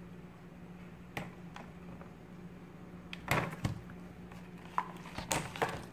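Clear plastic clamshell blueberry box being handled and opened by hand: a few sharp plastic clicks and crackles, the loudest just after three seconds in and again near the end, over a steady low hum.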